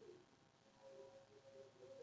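Near silence: faint room tone with a few weak, brief tones.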